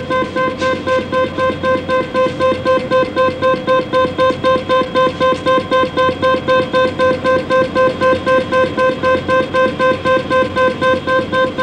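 A 1960s school computer's fault alarm: a steady mid-pitched tone beeping evenly about four times a second, signalling a line failure in the machine.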